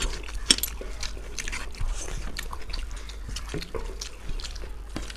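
Close-miked eating by hand: chewing and mouth smacks, with fingers mixing rice and egg omelette curry on steel plates, as irregular clicks, loudest about half a second in.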